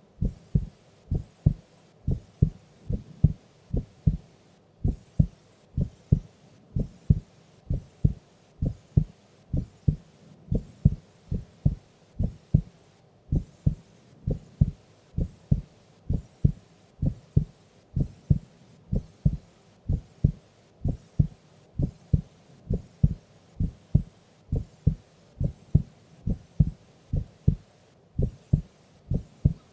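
A sleeping woman's heartbeat: a slow, regular lub-dub, two low thumps per beat at roughly one beat a second.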